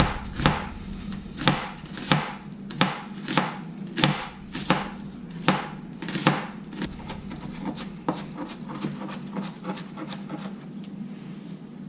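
Kitchen knife dicing an onion on a cutting board: sharp, regular chops a little under two a second, turning to lighter, quicker strokes about halfway through.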